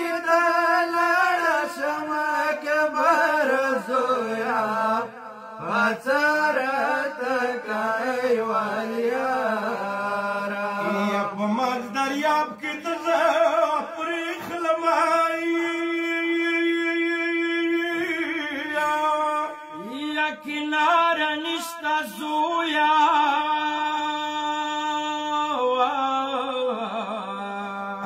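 Men chanting a Pashto noha, a Shia mourning lament, in a slow melodic line, with one long held note in the middle.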